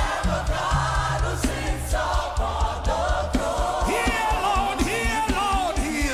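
Live gospel worship music: a lead singer and choir singing sustained, wavering vocal lines over a band with bass and a steady drum beat.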